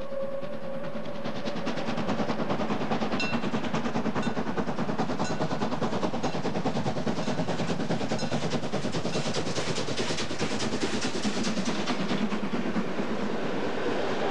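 DB class 23 steam locomotive 23 105 working a passenger train, its exhaust beating in a fast, even rhythm as it approaches, fullest about ten seconds in. A whistle fades out at the very start, and near the end the coaches roll past with wheel rumble.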